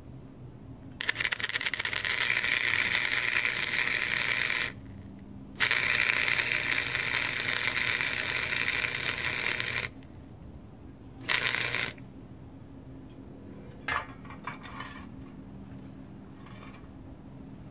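Wire-feed welder arc crackling in three runs: two beads of about four seconds each with a short pause between, then a brief tack. A few light ticks follow, over a steady low hum.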